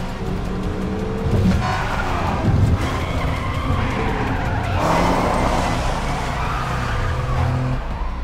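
Sports car engines revving, their pitch rising and falling, with tyres skidding and squealing on loose ground.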